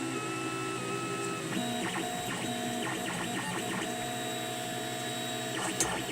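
Tevo Tarantula 3D printer's stepper motors whining at shifting pitches as the print head moves. About a second and a half in, the moves turn short and choppy, and a sharp click comes near the end.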